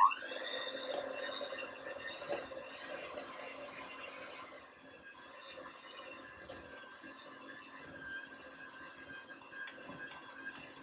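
Electric hand mixer switched on, its motor whining up to speed, then running steadily as its twin beaters cream margarine and caster sugar in a glass bowl. It gets a little quieter about halfway through.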